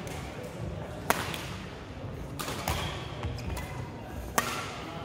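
Badminton rackets hitting a shuttlecock in a rally: a few sharp hits at uneven intervals, with thuds of footwork on the wooden court floor.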